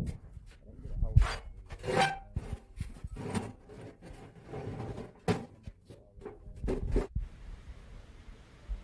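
Irregular knocks and clanks of steel pieces being handled and tapped during fabrication, a dozen or so uneven hits, some ringing briefly, that stop about seven seconds in.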